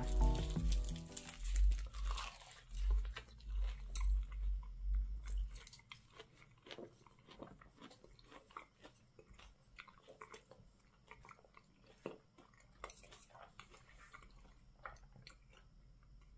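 Someone chewing a mouthful of food close to the microphone, with crunching and many small mouth clicks. Background music fades out in the first couple of seconds.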